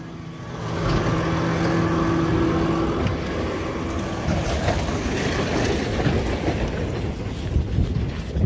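Farm tractor engine running steadily, with a held hum that fades out about three seconds in while a broad engine-and-machinery noise carries on.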